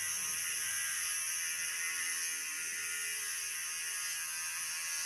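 Gama Italy GC625 10-in-1 electric hair clipper running steadily, a high-pitched buzz with nothing being cut.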